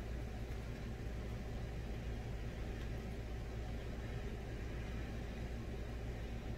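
Steady low hum with a faint even hiss beneath it: background room noise, with no distinct events.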